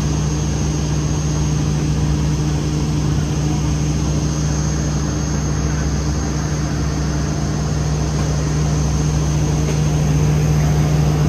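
Narrow-gauge Children's Railway train running steadily: a constant engine drone with rolling noise, getting a little louder near the end.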